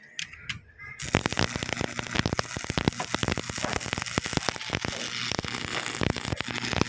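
Rapid, irregular crackling and popping that starts about a second in and keeps going.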